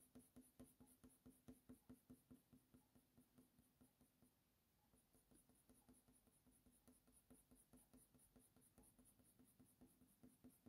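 Near silence, with faint, quick strokes of a Faber-Castell Polychromos colour pencil on hot press watercolour paper, about four a second, easing off briefly around the middle.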